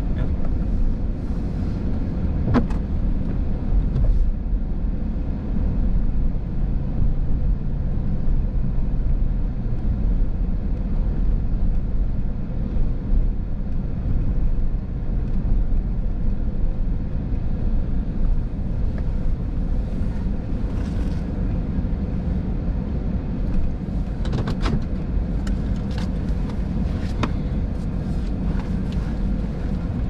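Steady low engine and road rumble of a car driving slowly, heard from inside the cabin, with a few light clicks near the end.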